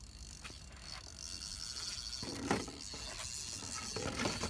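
Spinning reel's drag buzzing steadily as a hooked fish pulls line off on light mono, with a couple of short knocks.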